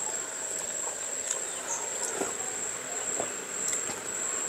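Insects singing in a steady, high-pitched drone, with a few light clicks of metal spoons against dishes.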